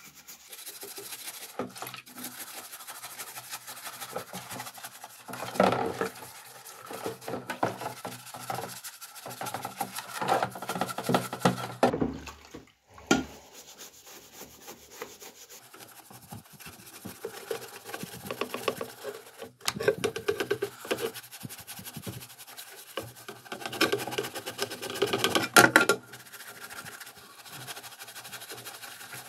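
A bristle paintbrush scrubbing a telephone's housing and parts in soapy water: rapid scratchy rubbing strokes, louder in a few spells, with a low knock a little before halfway.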